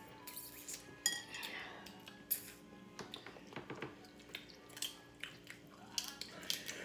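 Kitchen shears snipping crab-leg shell, with crab shells and utensils clicking and clinking against dishes: scattered small clicks.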